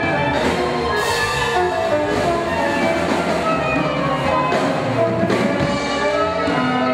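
Live band music with drums.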